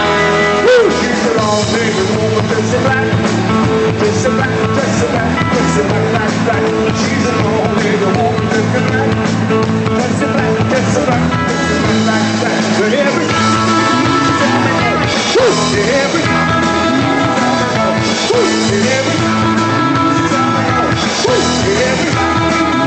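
Rock band playing a rock-and-roll number: electric guitar over bass and drums, steady and loud throughout.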